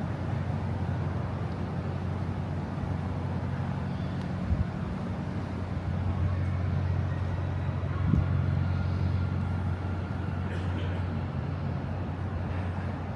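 A nearby vehicle engine running steadily with a low hum, over general street noise, with two short knocks about four and eight seconds in.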